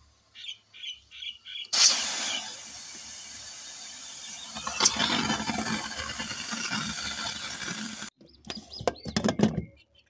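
Aluminium pressure cooker venting its steam as the pressure is let out by hand once the daliya is cooked: a sudden loud hiss about two seconds in, swelling again about five seconds in, that cuts off abruptly about eight seconds in. A few short knocks follow as the lid is handled.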